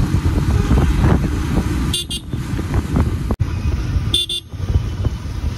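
Steady low rumble of wind and engine noise while riding a motorcycle in traffic, with two short, high-pitched horn toots about two seconds and four seconds in.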